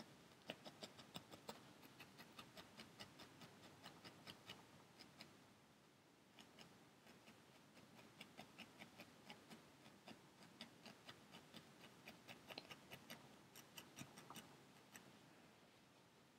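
Felting needle stabbing repeatedly through a wool ball into a foam pad: faint rapid ticks, about four a second, in runs with a short lull about five seconds in, as a bulge in the needle-felted pumpkin is sculpted down.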